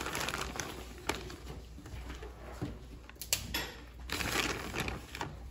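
Plastic zip-top bag of shredded cheese crinkling as it is handled and the cheese shaken out, with a few sharp ticks and a stronger rustle about four seconds in.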